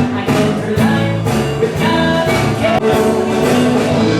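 Music with a steady beat of about two strokes a second.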